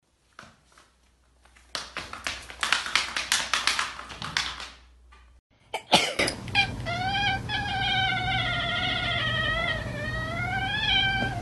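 A run of rapid clicking taps, then a ginger domestic cat gives one long, wavering yowl lasting about five seconds.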